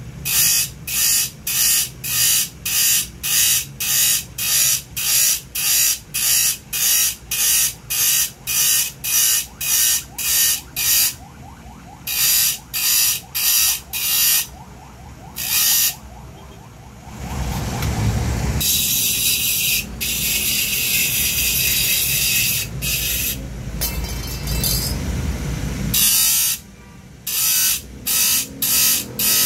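A thin abrasive grinding disc sharpening the teeth of a handsaw one tooth at a time: short rasps about two a second, broken by a longer steady grind of about nine seconds past the middle, then the quick rasps again near the end.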